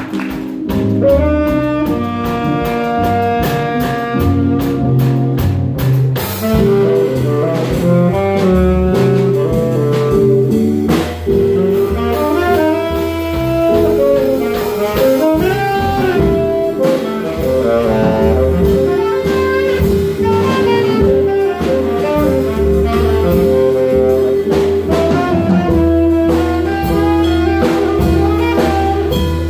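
Live small-group jazz: saxophone playing melodic lines with long held notes over archtop jazz guitar, upright bass and drum kit.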